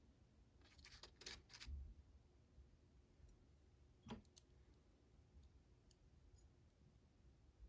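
Faint clicks and light taps of small metal parts being handled while driver pins are loaded back into a pin-tumbler padlock: a cluster of clicks about a second in, then a single click around four seconds in.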